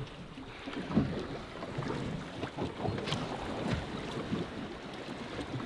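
Wind buffeting the microphone and water lapping against the hull of a drifting fishing boat, with a few scattered light knocks.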